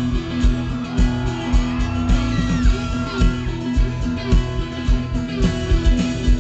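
Live country-rock band playing an instrumental break: drums keeping a steady beat about twice a second under bass and guitars, with a lead line of bent, gliding notes.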